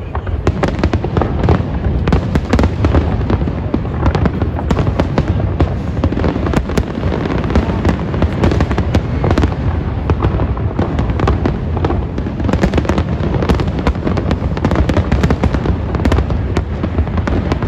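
Fireworks display: a dense, continuous barrage of booming shell bursts and crackling, many bangs a second over a steady low rumble.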